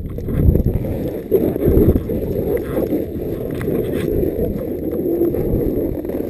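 Wind buffeting the microphone of a moving rider, with snowboards sliding and scraping over packed snow.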